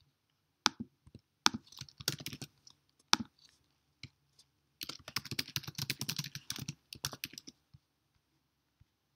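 Typing on a computer keyboard in bursts: a few single sharp keystrokes in the first seconds, a short run about two seconds in, and a longer fast run from about five to seven and a half seconds in.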